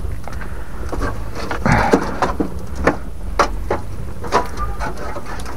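Wood fire being tended: scattered sharp crackles and knocks, about two a second at their busiest about two seconds in, over a steady low rumble, as the burning wood and embers are shifted across the grill.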